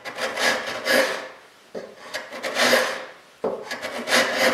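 Hand plane with a freshly sharpened iron shaving the end grain of a pine board: three rasping push strokes, the first already under way, each starting with a sharp bite and lasting about a second and a half. The blade is cutting well.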